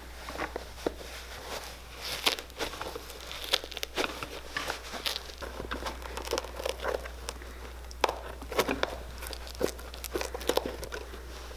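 Irregular light clicks, scrapes and crinkling, scattered unevenly, from hands and tools working on a leather shoe at the bench.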